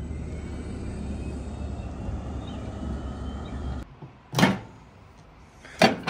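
Steady low rumble of road noise inside a moving car, cut off suddenly about four seconds in; after it come two short, loud, sharp noises about a second and a half apart.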